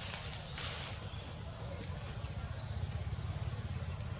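Outdoor ambience: a steady high-pitched insect drone over a low wind rumble on the microphone, with a single short rising bird chirp about a second and a half in.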